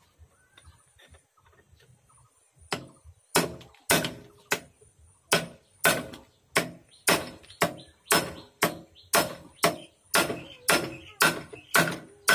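Hammer blows on metal, starting about three seconds in and repeating steadily about twice a second, each with a short ring, during assembly of a Kamco power tiller gearbox.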